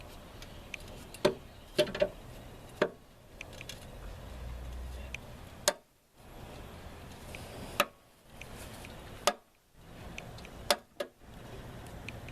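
Scattered sharp clicks and knocks, about nine of them at irregular intervals, with a few brief abrupt drops to near silence.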